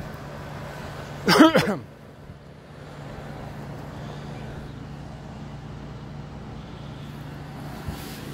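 A steady low mechanical hum throughout, with one short, loud voice-like sound a little over a second in, lasting about half a second.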